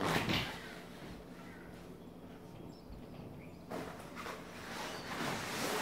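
Nylon fabric and frame of a portable travel cot rustling in a few short swishes as its top rail is handled, with faint bird calls in between.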